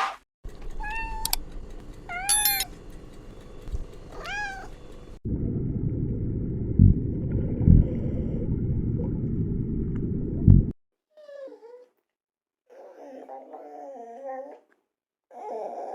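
Domestic cat meowing: three separate meows, each rising then falling in pitch, in the first five seconds. A low rumbling noise follows for several seconds, then a few shorter, fainter calls.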